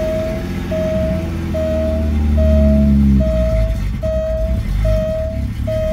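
Alfa Romeo Milano's V6 running fast just after a hesitant cold start, then dropping to a lower idle about three seconds in. A steady warning beep repeats a little faster than once a second throughout.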